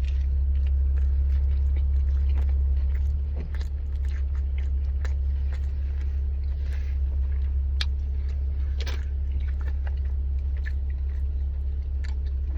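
A person biting and chewing a birria pizza with a crust, with scattered short crunches and mouth clicks. A steady low hum runs underneath and is the loudest sound.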